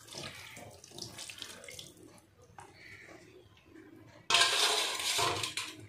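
Water poured from a bowl into a wok of fish and spice mix: a fading trickle and splash at first, then a louder rush of pouring water that starts suddenly about four seconds in and lasts over a second.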